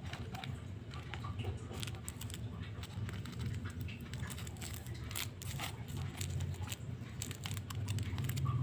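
Coloured sand being pinched, sprinkled and pressed onto a sand-art sheet: scattered light crackling and pattering at an uneven pace, over a steady low hum.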